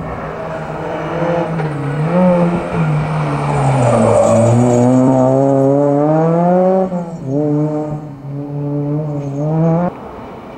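Honda Civic Type R rally car's four-cylinder engine revving hard, its pitch climbing and falling again and again through gear changes and lifts as it passes at speed. A rush of tyre and road noise swells about four seconds in, and the sound breaks off abruptly about seven and ten seconds in where separate passes are cut together.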